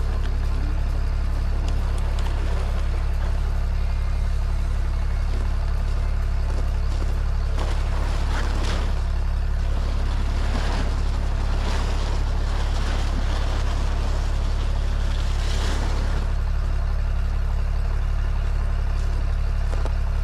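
A heavy machine's engine idling steadily while it warms up, with a few short bursts of handling noise in the middle.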